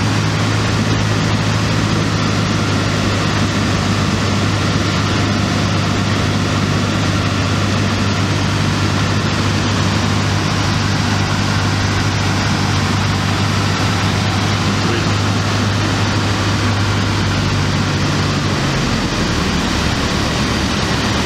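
Cessna 152's four-cylinder Lycoming engine droning steadily at approach power, heard inside the cockpit with rushing airflow noise. About 19 seconds in, its low note drops away as power comes off over the runway.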